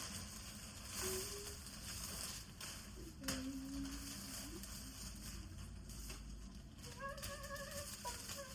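Clothing and packaging rustling as they are handled, with a few short, faint pitched sounds such as a hum.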